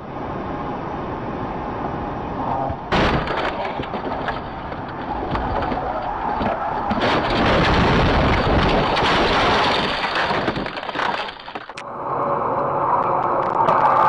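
Dashcam audio of a highway car crash: steady road noise, then a sudden loud crash about three seconds in, followed by a long stretch of crunching and breaking as vehicles collide and debris flies, loudest around the middle. A cut brings in another clip's road noise near the end.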